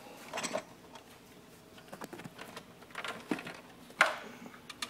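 Scattered light clicks and knocks of small objects being handled, with one sharp knock about four seconds in.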